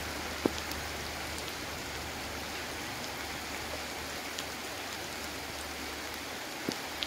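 Steady, even hiss of falling water like rain, with a few sharp drip-like clicks scattered through it.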